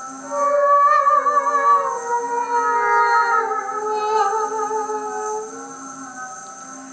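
Several layered, wordless vocal parts singing sustained notes with vibrato. Some notes slide slowly downward, over a low note that pulses on and off. The voices swell about half a second in and ease off toward the end.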